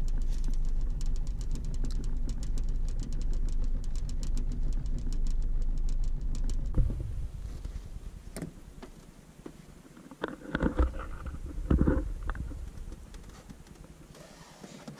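A steady low rumble with rapid ticking that cuts off abruptly about seven seconds in. Then a hooked smallmouth bass splashes twice at the surface as it is reeled to the boat.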